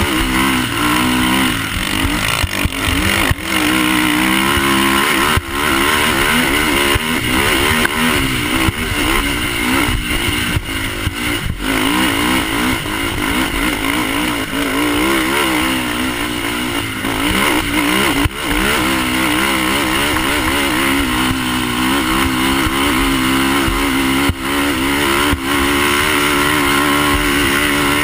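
Polaris Outlaw race quad's single-cylinder four-stroke engine run hard, its revs rising and falling constantly with the throttle over whooped-out cinders. There are occasional sharp knocks from the bumps.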